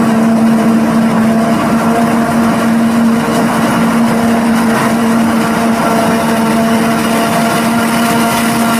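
Claas Jaguar 870 forage harvester running steadily while chopping maize, with a tractor and forage wagon alongside: an even machine hum with a strong constant tone.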